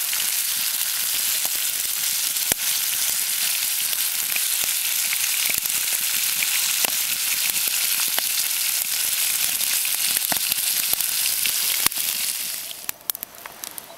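Walleye fillets frying in oil in a pan over a campfire: a steady, loud sizzle with a few sharp clicks scattered through it. The sizzle drops away sharply near the end.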